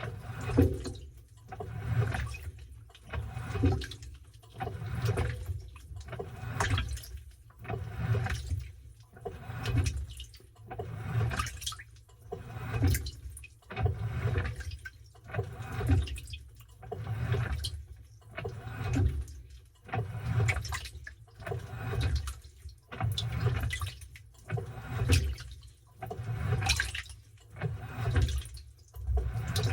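Washing machine churning a load of towels in water, the water sloshing in regular surges about once a second as the tub agitates back and forth.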